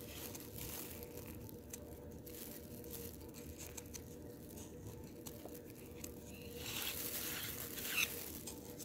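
Faint rustling and crinkling from hands handling the food and its wrapping, a little louder about seven seconds in with a few light clicks, over a faint steady hum.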